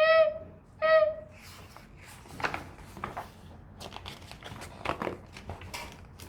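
Two high, squeaky hiccup sounds ('hic') about a second apart at the start, then a few seconds of paper rustling and crinkling as the book's pages are handled.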